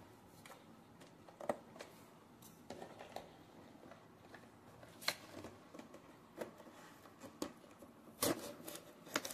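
Toy car multipack packaging being handled and opened by hand: faint scattered clicks and rustles, with a louder burst of crackling near the end.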